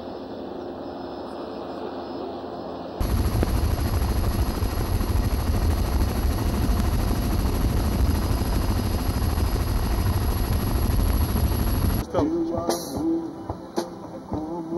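Helicopter flying overhead. About three seconds in, the sound switches suddenly to loud, steady helicopter noise recorded on board: a deep rotor and engine rumble with a thin high whine. About twelve seconds in it cuts to a band playing, with acoustic guitar and a man singing into a microphone.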